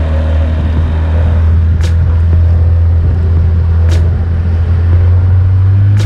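Outboard motor running steadily under way, pushing a small aluminium boat, a loud low drone that edges up in pitch near the end. Two sharp knocks break through, about two seconds in and again at four.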